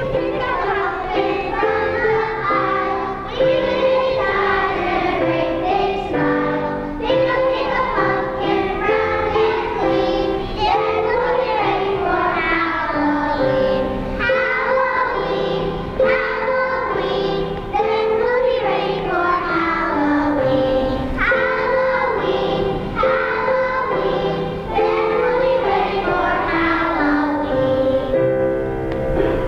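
Children's choir singing a song in unison, with piano accompaniment.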